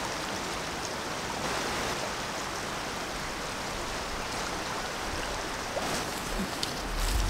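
Steady rush of flowing river water. A few sharp crackles come in near the end.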